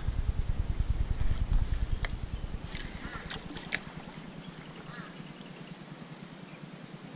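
Wind rumbling on the microphone for the first few seconds, then dying away. Around the middle come a few short, high, sharp sounds.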